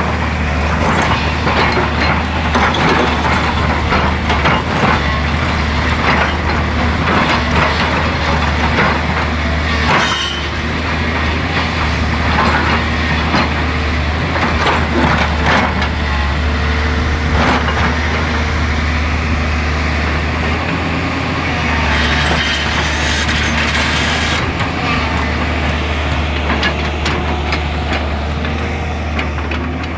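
Excavator's diesel engine running steadily under load, with repeated knocks and scraping throughout.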